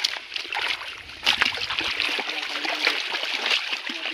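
Shallow river water running and splashing around legs wading through it, with several sharp splashes, the loudest about a second and a half in.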